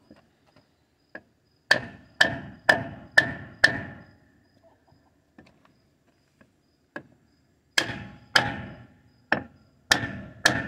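Hammer blows on a block of wood held against a truck's front wheel hub, tapping the new dust cap (grease cap) into place. A run of five sharp knocks about two a second, then after a pause a light knock and another run of blows.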